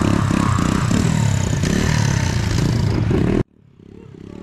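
Small pit bike engine revving hard and unevenly, close by, with some clatter. About three and a half seconds in the sound cuts off abruptly and a much fainter, muffled engine sound takes over and slowly grows louder.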